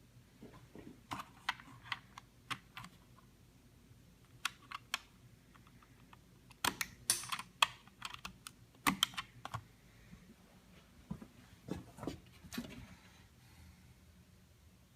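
Irregular light clicks and taps of small hard parts being handled, coming in four clusters with pauses between; the sharpest run falls in the middle.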